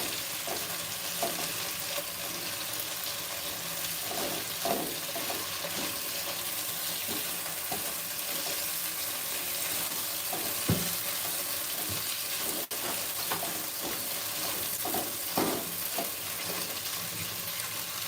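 Chicken pieces frying in oil in a pan, sizzling steadily, with the occasional knock and scrape of a utensil stirring them, the loudest knock about ten seconds in.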